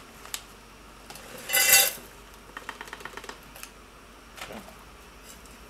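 Dry freeze-dried beef stroganoff poured from its pouch into a stainless steel pot: one loud rattling clatter of about half a second on the metal, followed by light clicks and rustles of the pouch and pot being handled.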